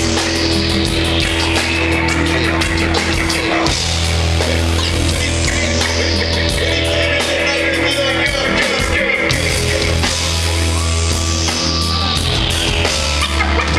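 Loud live rock music through a concert PA with a heavy, steady bass. A high whooshing sweep falls in pitch and recurs every few seconds.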